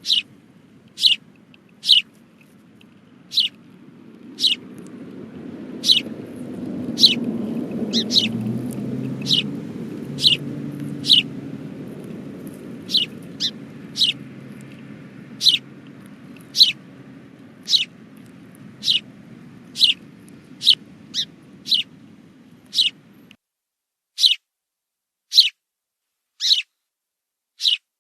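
A white cockatoo giving short, sharp, high chirps that drop in pitch, repeated about once a second. A low background murmur under them cuts off suddenly near the end.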